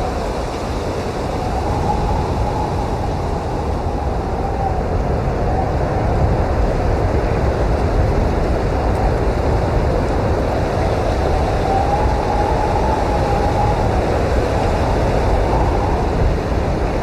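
Snowstorm wind blowing hard and steadily with a deep rumble, and a thin whistling tone that swells and fades twice.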